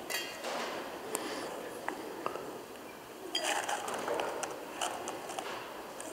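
Silver chalices and ciboria clinking against each other on the altar as they are handled: a few sharp metallic clinks, the first one ringing briefly, then a longer clattering, rustling stretch from about three and a half seconds in as one vessel is tipped into another.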